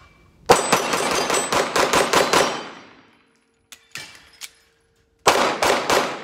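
A fast string of about ten shots from a Glock 45 MOS 9mm pistol, the hits ringing on steel targets, then a few clicks of a magazine reload about four seconds in, then three more quick shots near the end.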